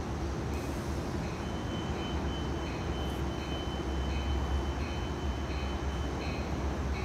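Low rumble of an approaching train, growing louder about halfway through. A bell dings steadily about every 0.7 s, and a thin steady high tone sounds for a few seconds in the middle.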